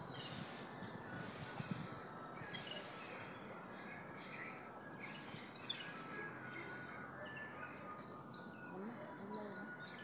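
Birds chirping: a dozen or so short, sharp high calls at irregular intervals, the loudest about two seconds in and near six seconds in, over a steady high insect-like hiss.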